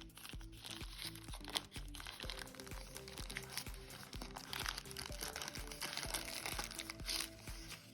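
Background music with a repeating low melody, over the crinkling and rustling of product packaging being handled and opened.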